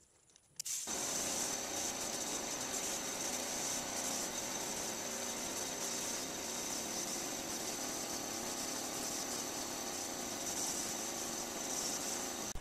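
Compressed-air paint spraying: a spray gun's steady hiss as it sprays primer, with a small portable air compressor running. It starts suddenly about half a second in and holds level, then drops away at the very end.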